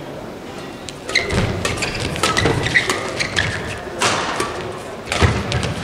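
Badminton doubles rally: rackets striking the shuttlecock and players' feet thumping and shoes squeaking on the court, starting about a second in, with a couple of heavier thumps in the second half.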